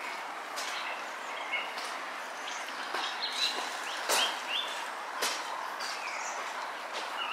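Footsteps crunching on icy snow at a walking pace, about one sharp crunch a second, over a steady background hiss. Small birds chirp briefly, mostly a few seconds in.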